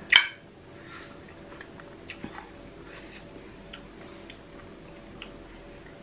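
Someone chewing a mouthful of seafood papaya salad, with small scattered mouth clicks, opened by one short loud burst of noise right at the start.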